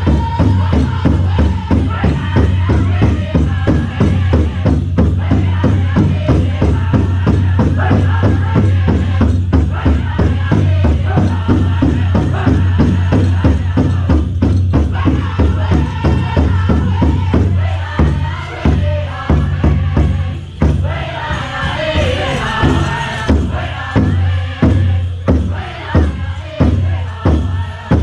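Powwow drum group playing a chicken dance song: a big drum struck in a steady, fast beat under high-pitched group singing. About two-thirds of the way through the beat opens out into slower, spaced strokes, there is a short lull, then a high voice leads the singing again.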